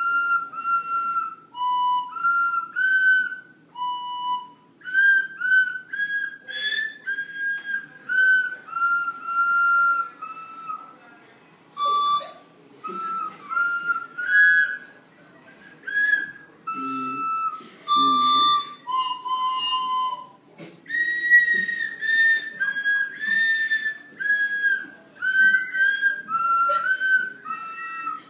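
A simple tune played note by note on single-note tuned whistles, each note a steady, shrill pitch held for about half a second to a second before the next whistle takes over, with short gaps between some notes.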